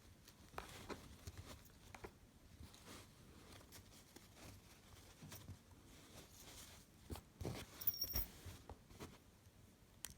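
Faint rustling and small clicks as a bag padlock and its keys are taken out and handled, with a brief light metallic clink about eight seconds in.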